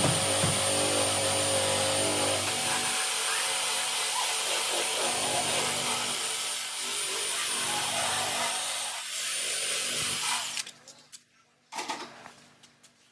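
Handheld power tool working on a car's damaged quarter panel, a steady rubbing noise that cuts off about ten and a half seconds in.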